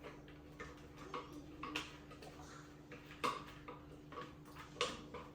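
Irregular light clicks and knocks of kitchen utensils and cookware being handled, the sharpest about three seconds in and again near five seconds, over a steady low hum.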